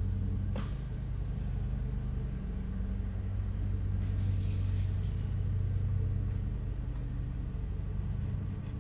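A steady low hum, with one sharp click about half a second in.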